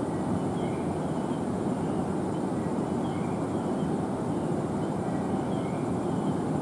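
A train at the platform giving a steady rumble, with faint short high squeaks now and then.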